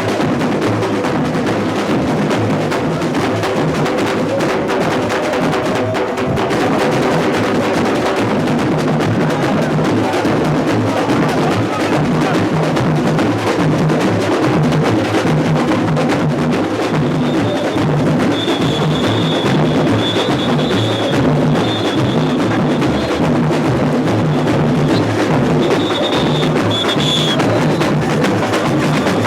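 Samba bateria drumming in full: surdo bass drums pulsing under a dense, continuous mass of snares and small percussion. A high steady tone sounds on and off over it in the second half.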